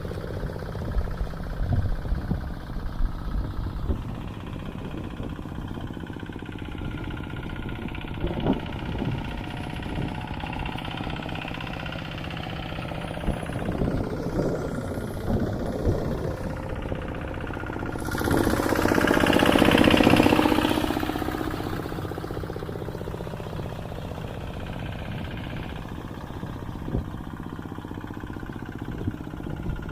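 Engine of a tractor ploughing a rice field, running steadily with a knocking beat. It swells louder for a few seconds just past the middle.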